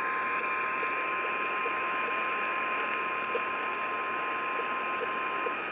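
NOAA Weather Radio's 1050 Hz warning alarm tone: a single steady tone over radio static hiss, cutting off shortly before the end. It signals that a warning broadcast follows.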